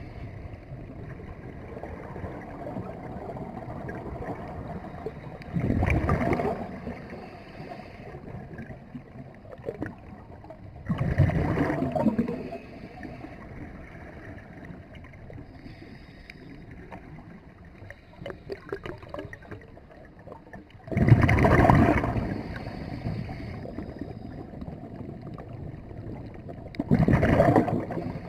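Scuba regulator breathing heard underwater: four loud rushes of exhaled bubbles, several seconds apart, over a quieter steady rush.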